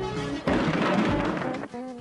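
Music with a beat, getting louder and denser from about half a second in for about a second.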